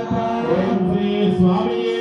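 Ayyappa devotional song: a male voice singing over steady sustained tones.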